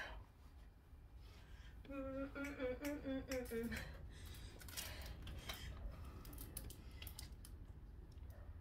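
A woman hums a few wavering notes for about two seconds, falling in pitch at the end. Faint clicks and rustles follow.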